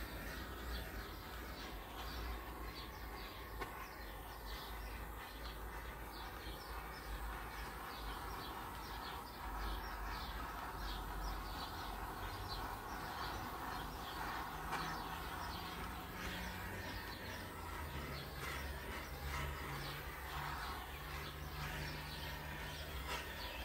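Small butane torch hissing steadily as it is passed over wet poured acrylic paint, with birds chirping in the background.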